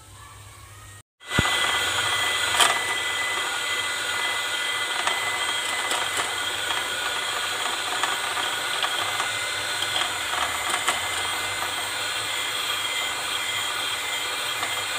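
Electric hand mixer starting about a second in, then running steadily with a constant whine as its beaters whisk melted butter and powdered sugar in a glass bowl.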